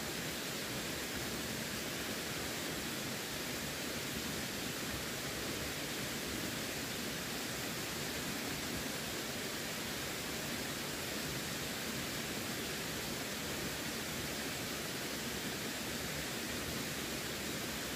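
Running water giving a steady, unbroken rushing hiss with no splashes or changes.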